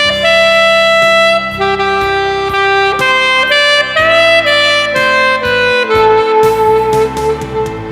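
Alto saxophone playing a slow melody of held notes over an accompaniment track, sliding up into one note about four seconds in and ending on a long held note.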